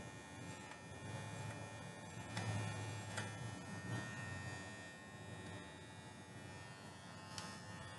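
Small electric pet hair trimmer buzzing steadily as it clips a Shih Tzu puppy's face and top-knot fur, with a few light clicks.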